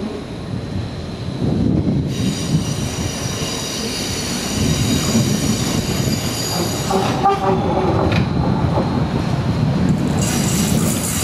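A DDm car-transport wagon being shunted slowly over a curved siding: a steady low rumble of rolling wheels, with a high wheel squeal from about two seconds in that stops about five seconds later. A brief lower tone follows, and a high squealing hiss sets in near the end.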